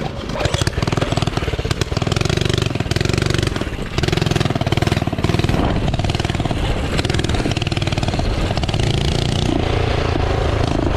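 Mini bike's small single-cylinder engine running under way, a rapid rattly firing, with the throttle opening and easing off a few times.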